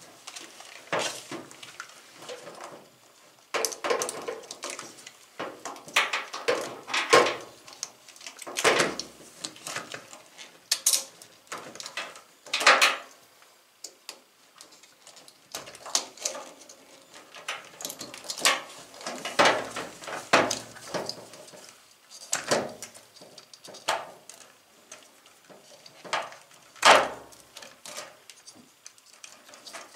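Plastic wiring-harness connectors clicking and rattling as they are pulled from and pushed onto a washing machine's main control board, with its plastic housing knocking as it is handled. Irregular sharp clicks and knocks, a few louder ones standing out.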